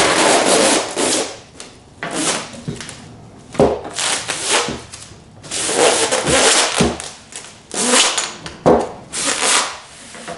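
Clear plastic shrink wrap being pulled off its roll and laid out, crackling and rustling in repeated bursts, with a few dull knocks of the roll against the wooden table top.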